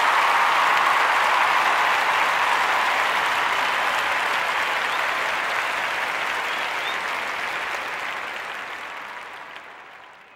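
Crowd applauding, steady at first and then fading away over the last few seconds.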